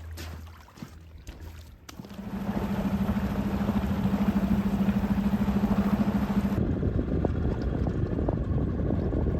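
A small boat motor starts running about two seconds in, a steady drone mixed with water and wind noise; the sound changes abruptly a little over halfway through to a rougher, lower noise.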